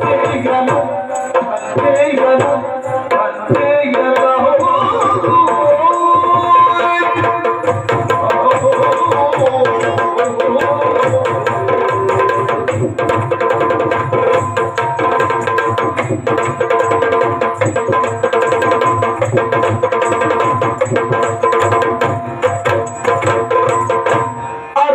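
Yakshagana accompaniment: chande and maddale drums playing fast, dense strokes over a steady held drone, for the dance. In the first few seconds a melodic line bends over the drums.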